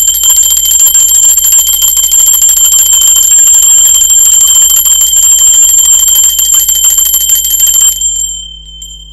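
Small brass hand bell shaken rapidly, its clapper striking continuously in a bright, high ringing for about eight seconds, then the ringing fades away.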